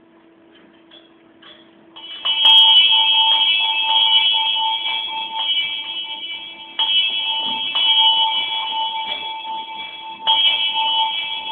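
Small bell in a wooden yoke on a wrought-iron wall bracket, swung full-circle so its clapper strikes it: it starts ringing about two seconds in, with fresh loud strikes about every three and a half seconds and the tone ringing on between them.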